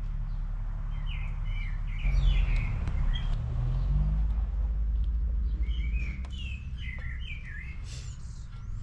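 A songbird chirping and twittering in short, twisting phrases, in two spells, over a steady low hum that grows louder about two seconds in and eases about six seconds in.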